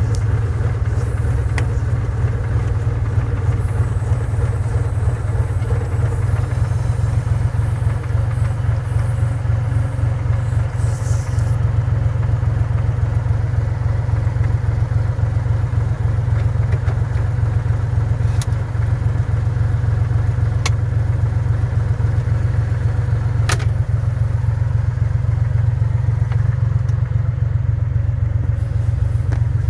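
Daihatsu Hijet 1000 engine idling steadily after two months of standing unused, with a few sharp clicks or taps scattered through it.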